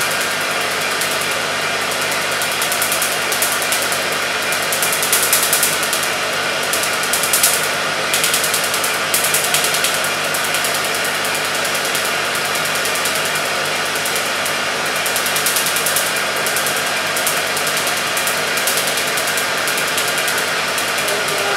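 Tattoo-removal laser machine running: a steady machine hum with a fast, even crackle of laser pulses firing on the skin.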